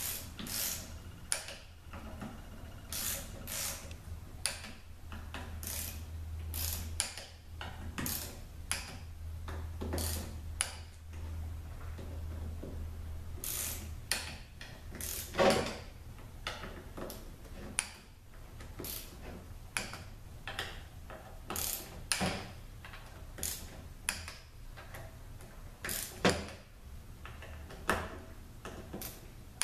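Hand ratchet clicking in short, irregular runs as the bolts of a 45RFE transmission valve body are turned down to about 70 inch-pounds.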